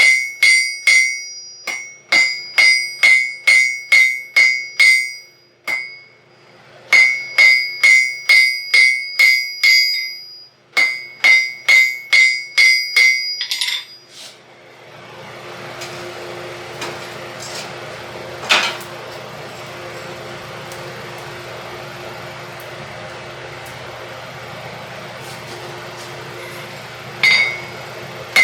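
Hand hammer striking hot steel on an anvil, about three blows a second in runs with short pauses, each blow ringing clearly off the anvil. The hammering is the shaping of a decorative curlicue on a hook. After about fourteen seconds it gives way to a steady rushing hum, and single blows start again near the end.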